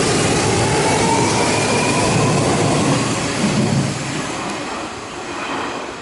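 Hanshin Railway electric commuter train running along the platform: loud wheel and running noise with a faint motor whine that rises in pitch as it gathers speed, fading over the last few seconds as it pulls away.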